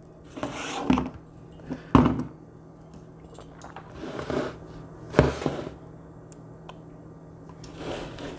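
Kitchen handling noises: a few sharp knocks and thunks, about one, two and five seconds in, with softer rustling between them as things are picked up and set down.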